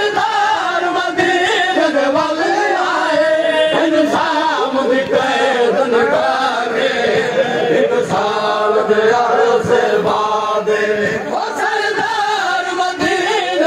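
A noha, a Shia mourning lament, chanted by a crowd of men's voices led by a reciter.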